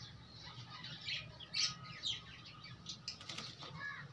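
Birds chirping: many quick, high, short chirps, some in fast runs, with a few faint clicks about three seconds in.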